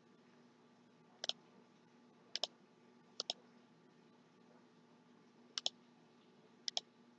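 Computer mouse clicking: five quick pairs of faint clicks spread a second or so apart.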